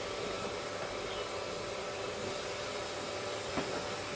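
Steady hissing background noise with a faint steady hum, and a single light click about three and a half seconds in.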